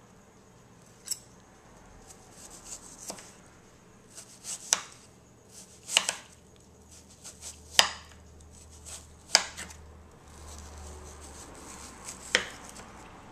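Chef's knife cutting a peeled white onion: irregular sharp knocks of the blade hitting the cutting surface, a second or two apart, with fainter slicing ticks between them.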